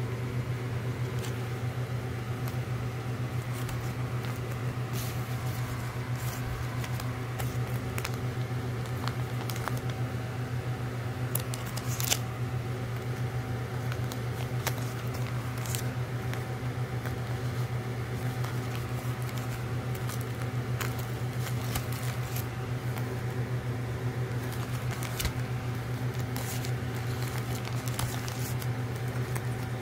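Stacked 7-inch vinyl singles in plastic sleeves being handled and flipped through, with scattered soft clicks and rustles over a steady low hum.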